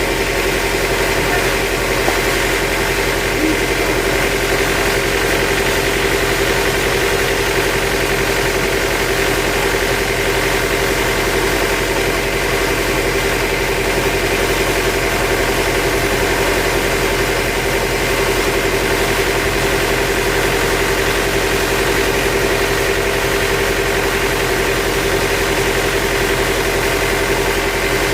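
Sawmill machinery running steadily, a constant engine-like drone with a steady whine that neither rises nor falls.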